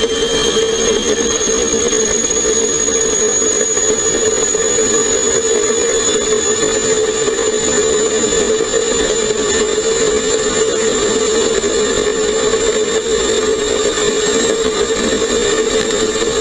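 Lightning LS-218 electric motorcycle at speed: its motor's high whine climbs slowly in pitch as the bike keeps accelerating, over a steady lower hum and a loud, even rush of wind.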